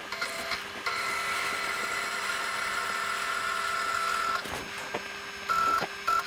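Stepper motors of a 6012 CNC router whining as the gantry is jogged from a handheld wireless pendant to set the X-Y zero: a couple of short moves, then one long steady move of about three and a half seconds, then two brief moves near the end.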